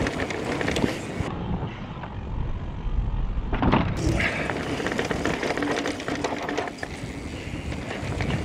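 Electric mountain bike rolling down a dirt singletrack: tyre noise on the dirt and the bike rattling over bumps, with a sharp knock about three and a half seconds in.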